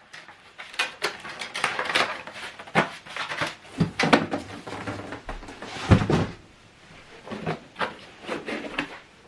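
Cardboard box and packing material being handled: a string of rustles, scrapes and light knocks, with one louder thump about six seconds in.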